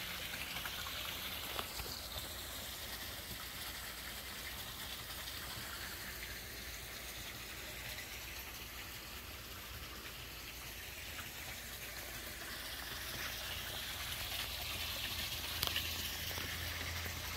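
Hot tub's spillway waterfall splashing steadily into the spa, with the tub's jets running; louder at the start and again toward the end.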